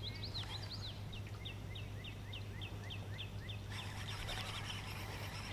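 A songbird singing a fast series of short down-slurred notes, about five a second, that stops about two-thirds of the way in. A steady low hum sits underneath, and a soft hiss sets in as the song ends.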